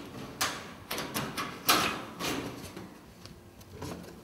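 Basenji puppy pawing and scraping at the wire mesh of a chinchilla cage: a run of sudden scrapes and rattles, the loudest about two seconds in, then quieter.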